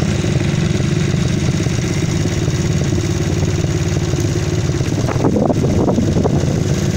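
Small quad bike's engine running steadily at low revs as it is ridden. About five seconds in a brief louder, wavering sound rises over it for about a second.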